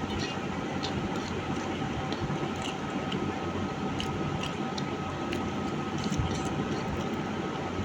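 A person chewing a mouthful of rice, with small scattered mouth clicks over a steady rushing background noise that carries a faint steady whine.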